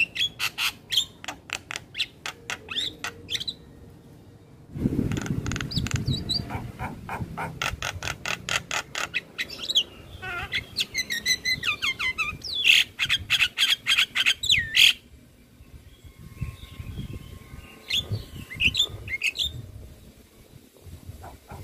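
Javan myna (jalak kebo) singing a long, varied song: fast runs of harsh, clicking chatter mixed with whistled notes that slide up and down. It breaks off briefly about four seconds in, and the calls become fewer and quieter in the last few seconds.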